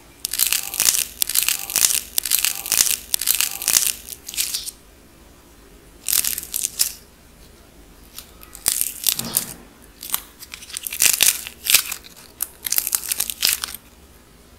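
A dried clay donut shell with a gold glitter coating being cracked, crumbled and peeled apart by fingers: crisp crackling and crunching in several runs, split by short pauses.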